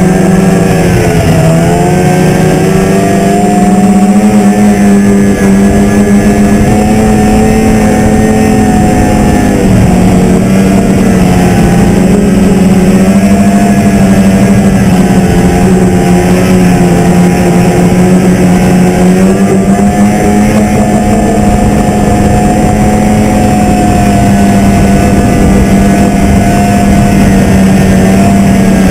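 Snowmobile engine on an '02 Arctic Cat Z440 Sno Pro, a two-stroke, running loud and steady at riding speed. Its pitch dips briefly and climbs back a few times as the throttle eases and opens.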